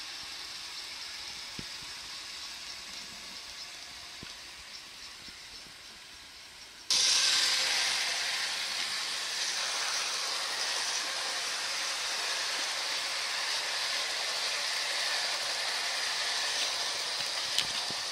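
O gauge two-rail electric model train running on garden track: a steady rolling rush from its wheels on the rails, with a few faint clicks. About seven seconds in it jumps abruptly louder and brighter, heard from close beside the track.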